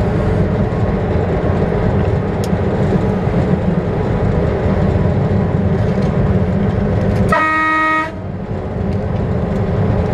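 Train running along the track, a steady rumble heard from the driver's cab. About seven seconds in, a single short horn blast of under a second sounds on one steady note and cuts off sharply.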